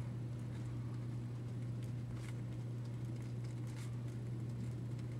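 Pen scratching and paper rustling as the maintenance booklet is filled in, in a few faint short strokes over a steady low hum.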